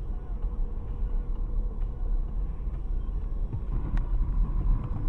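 Car driving in traffic heard from inside the cabin: steady low engine and road rumble with a faint hum. A small click about four seconds in.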